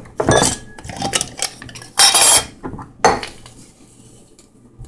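Metal measuring spoon scraping and clinking in a dish while scooping out a teaspoon of salt: three scrapes, the loudest about two seconds in.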